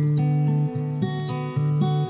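Background music of plucked acoustic guitar, with held notes over a steady low tone.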